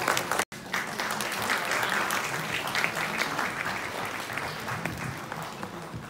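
Audience applauding, a dense patter of many hands that thins out toward the end, with a brief cut-out half a second in.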